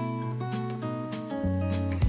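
Background music: acoustic guitar with a steady beat.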